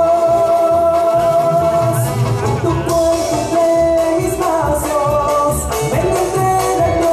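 A man singing into a microphone over instrumental accompaniment with a steady bass and drum beat, holding long notes.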